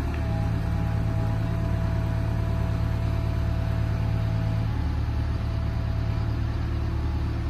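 Caterpillar M315 wheeled excavator's diesel engine running steadily while its hydraulics move the boom and bucket. A steady whine rides over it and stops about two-thirds of the way through, when the engine sound shifts.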